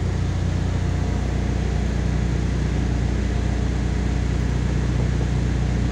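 MAZ 103.465 city bus engine heard from inside the passenger cabin, a steady low drone.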